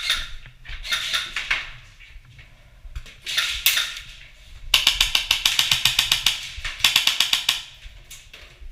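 Airsoft guns firing on full auto: rapid, evenly spaced clicking rattles in two long bursts about halfway through, after a few shorter bursts.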